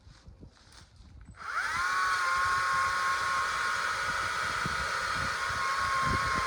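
Stihl chainsaw coming up to speed about a second and a half in, after a few faint rustles, then running at high speed with a steady high-pitched whine.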